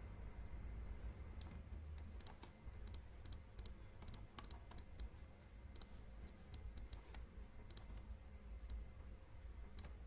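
Computer mouse buttons clicking: irregular single clicks and quick pairs, over a faint low steady hum.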